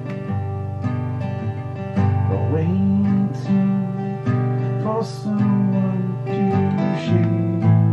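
Acoustic guitar music, strummed and picked chords with a steady flow.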